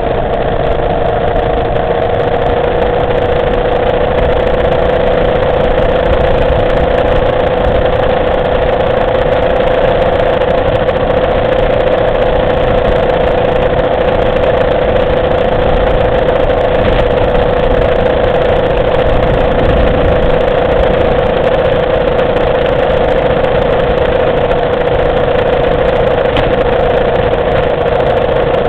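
Motorcycle engine running at a steady cruise with a constant engine note, heard from on board the moving bike with wind and road noise rushing underneath.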